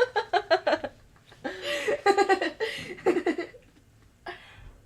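Laughter in two bursts, the first with rapid pulses, the second starting about a second and a half in, in reaction to a burp.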